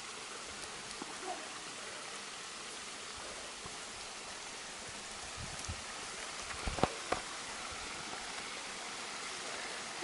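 Steady rushing of a waterfall and stream falling into rock pools. A few short knocks come about two-thirds of the way through.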